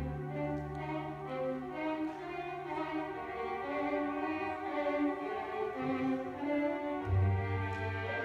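Symphony orchestra playing, the violins carrying a moving line of sustained notes over a held low note. Deep bass notes come back in near the end.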